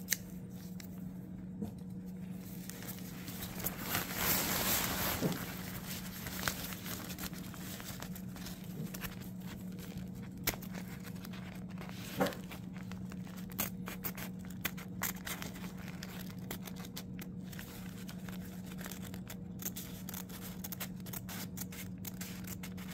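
Scissors snipping through tent fabric in short, irregular cuts, more often in the second half, with the fabric crinkling as it is gathered and turned; a longer rustle comes about four seconds in. A steady low hum runs underneath.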